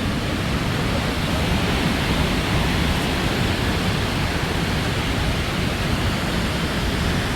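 Steady loud rush of Victoria Falls, a huge waterfall's falling water, even and unbroken throughout.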